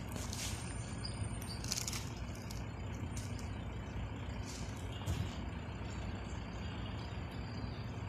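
Low, steady rumble of a passenger train approaching along the track in the distance, with a few short bird chirps over it.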